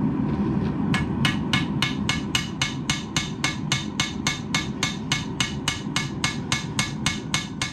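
Hand hammer forging forge-heated steel on an anvil: a steady run of ringing strikes, about three and a half a second, starting about a second in, over a steady low rumble.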